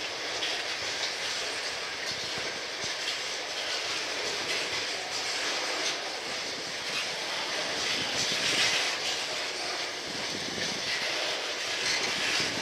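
Loaded tank cars of a freight oil train rolling past: the steady noise of steel wheels on rail, with faint clicks of wheels over the rail joints.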